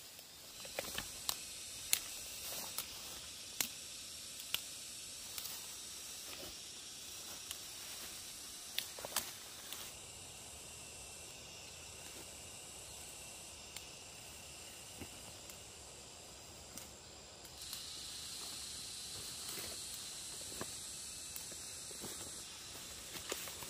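Outdoor jungle ambience of insects buzzing in steady high tones, a second, stronger high tone joining about three-quarters of the way through, with many scattered sharp snaps and rustles of plants being handled, densest in the first half.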